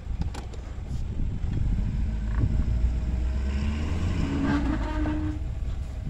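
Pickup truck engine running as the truck pulls forward towing a hay bale buggy, with a steady low rumble and an engine note that rises in steps in the middle.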